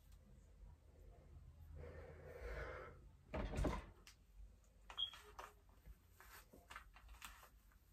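Faint rustling and handling noises of hands and a bristle hairbrush working through gelled curly hair, with a louder scrape about three and a half seconds in and scattered small clicks after it.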